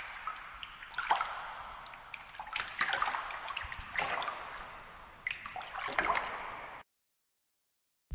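A watery sound effect of dripping and gurgling, a hiss with scattered clicks that swells and fades in several waves and cuts off abruptly near the end.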